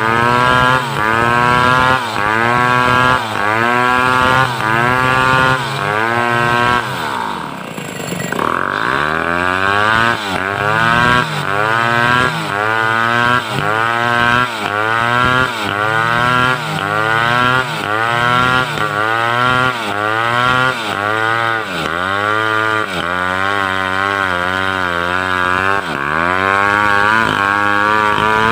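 Assembled two-stroke chainsaw under load, ripping a mindi log lengthwise. Its engine pitch rises and drops about once every three-quarters of a second as the chain cuts; about a third of the way through the revs sag low and then climb back.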